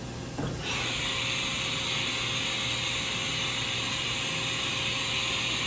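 Haas VF1 CNC vertical mill carrying out a tool change to tool 10, heard as a steady hiss that starts about a second in and cuts off suddenly near the end, over a faint steady machine hum.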